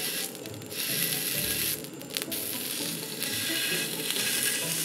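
Hanwoo chuck flap (salchisal) sizzling on a hot griddle as it is laid down. The hiss flares briefly twice, about a third of a second in and about two seconds in.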